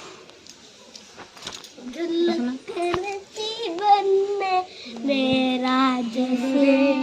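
Singing in a high voice with long, wavering held notes, starting about two seconds in after a quieter stretch; near the end, steady instrumental notes join in.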